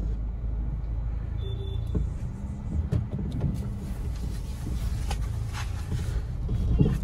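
Hyundai hatchback driving off, heard from inside the cabin: a steady low rumble of engine and road noise with a few light knocks.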